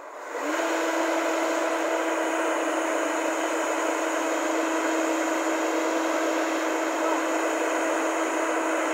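JCB JS205 tracked excavator's engine and hydraulics running hard as the boom moves, with a steady whine over the engine noise. It comes in abruptly just after the start, then holds steady.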